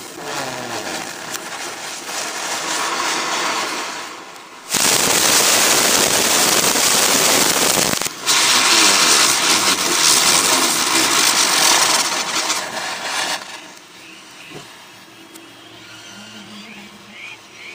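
Fountain fireworks (anar) spraying sparks with a steady rushing hiss. The hiss grows much louder about five seconds in, breaks off briefly near eight seconds, then carries on loud until it dies down to a faint background about thirteen seconds in.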